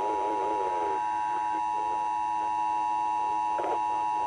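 Emergency Alert System attention signal: a steady electronic two-tone sounding without a break. Faint, garbled TV programme audio with a voice runs underneath, and there is a short burst of noise about three and a half seconds in.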